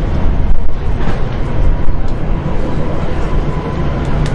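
Jet engines of a narrow-body twin-jet airliner at takeoff thrust, a loud, uneven low rumble through the takeoff roll and rotation.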